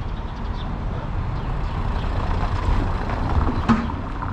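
A heavy road vehicle passing close by on the street, its low rumble building and then easing, with a sharp click near the end.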